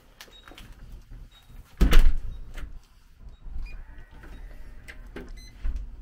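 A front door pulled shut with a loud thump about two seconds in, then scattered clicks of the door and lock being handled. A short electronic beep sounds near the end.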